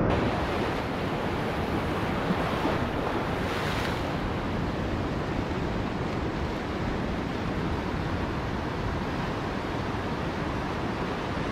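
Ocean surf washing in over rocks and sand in a steady rush, with wind buffeting the microphone.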